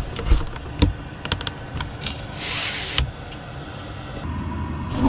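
A camper van's sliding side window being opened by hand: a run of latch clicks, then a rasping slide that swells for about a second and stops sharply. A steady hum starts near the end.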